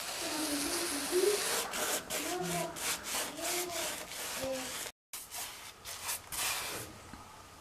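Putty knife scraping white plaster filler across a wall, a run of short rasping strokes. The sound drops out briefly about five seconds in, then the scraping resumes.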